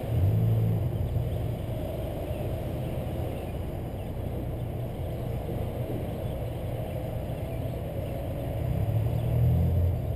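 Low rumble of a car creeping forward in a slow queue, engine and road noise. It swells briefly at the start and again near the end.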